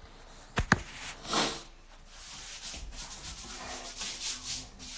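Two sharp knocks as a phone is handled and set down, then a run of soft, repeated rubbing: hands rubbing over bare skin.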